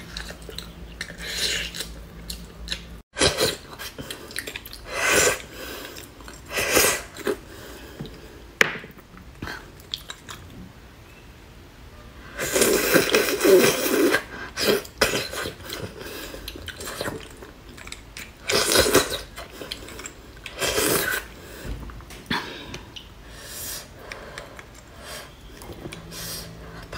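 Close-up eating sounds in short, irregular bursts: chewing on braised pork trotter, then, after a cut about three seconds in, sucking and slurping marrow out of cross-cut beef bones, loudest near the middle.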